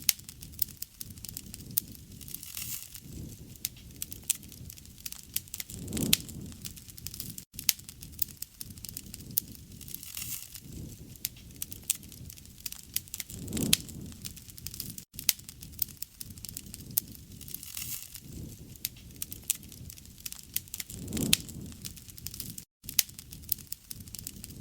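Wood fire crackling and popping with many sharp snaps. A low rush swells and fades about every seven and a half seconds.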